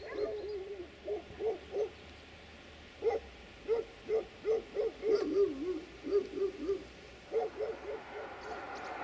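A dog barking repeatedly in short, wavering barks, in groups: a few near the start, a long run from about three to seven seconds in, and three more near the end.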